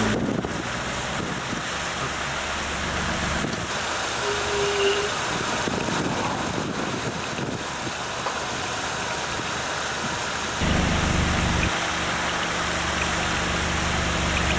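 Waterfall rushing steadily. A low rumble joins it about ten seconds in.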